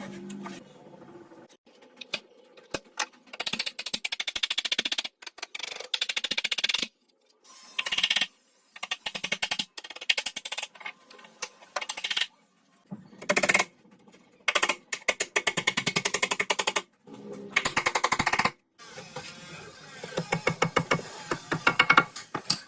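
Rapid mechanical clattering from a woodworking power tool, many ticks a second, in a string of short runs that start and stop abruptly.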